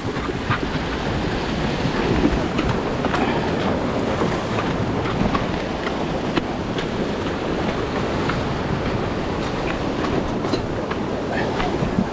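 Rough sea surf breaking and washing over reef rocks: a steady, full rush. It is dotted with scattered light clicks and knocks from footsteps and carried gear on the rock.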